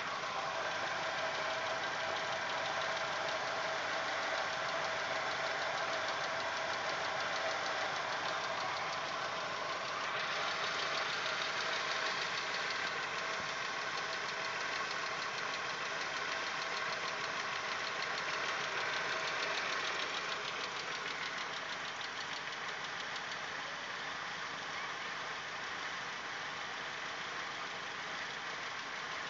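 Audi 1.8-litre 90 hp inline-four petrol engine idling while warming up, with a fine rapid ticking that comes and goes. The owner takes the ticking for the hydraulic valve lifters and suspects the 15W-40 mineral oil, since swapping the lifters changed nothing. The sound shifts in character about ten seconds in and eases slightly after about twenty seconds.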